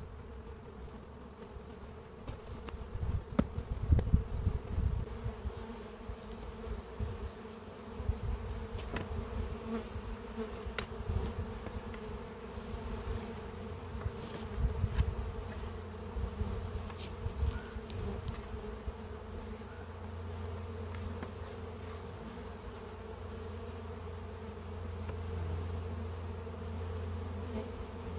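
Honeybees buzzing steadily around an open Langstroth hive, with a few louder knocks and scrapes about four seconds in and again around fifteen seconds as hive parts are handled.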